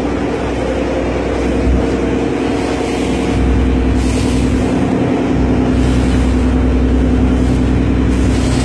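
Ferry's engine droning steadily, a constant hum, with a low rumble of wind on the microphone.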